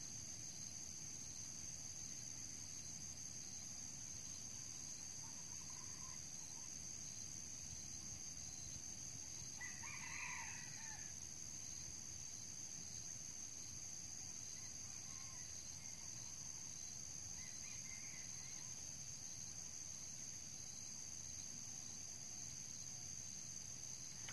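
Red junglefowl rooster crowing once, briefly, about ten seconds in, with a few fainter short calls before and after, over a steady high drone of insects.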